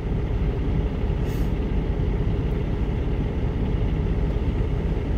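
Semi-truck's diesel engine idling, a steady low rumble heard from inside the cab, with a brief faint hiss about a second in.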